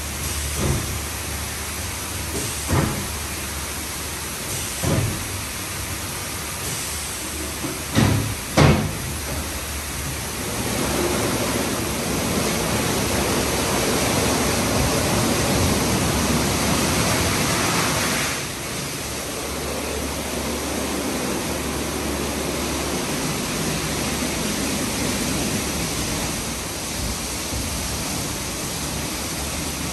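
Istobal M9+ rollover car wash in its wash stage: a steady rush of water spraying and brushes working over the car. There are several thumps in the first nine seconds, and a louder stretch from about ten to eighteen seconds in.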